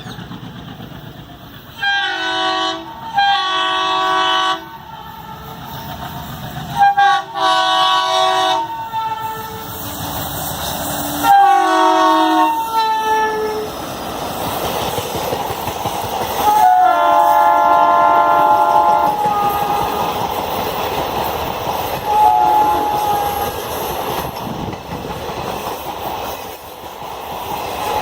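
Indian passenger train's multi-tone air horn sounding a series of long blasts, some in quick pairs, the ends of a few sliding down in pitch, with a last short blast near the end. Under the later blasts the rumble and clickety-clack of the coaches running past builds up.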